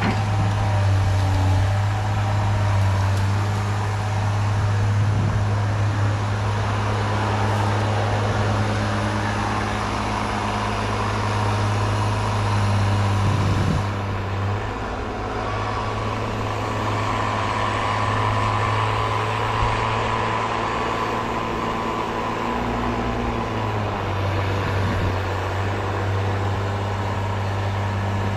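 Diesel engine of a Cat 318B excavator running with a steady low hum. Its note shifts and dips slightly about halfway through, and a higher whine joins for a few seconds after.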